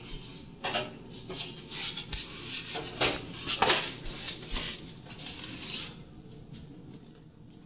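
Plastic egg carton and food packages rustling and clicking as they are handled and moved about on refrigerator shelves, an irregular run of short clatters and rustles that dies down about six seconds in.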